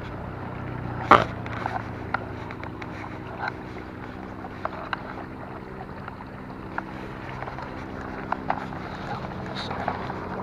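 An engine running steadily at an even pitch, with scattered sharp clicks and one louder knock about a second in.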